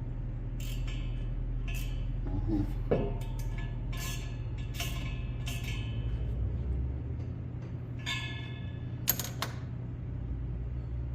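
Irregular metallic clinks and knocks, each with a short ring, from a wrench and chuck as a heavy flywheel is clamped in a metal lathe's chuck, over a steady low hum.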